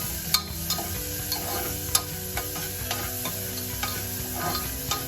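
Chopped onion and curry leaves sizzling in hot oil in a pressure cooker on medium heat, being sautéed until pink. A spoon stirs through them, with sharp clicks against the pot, the loudest about a third of a second in and near two seconds in.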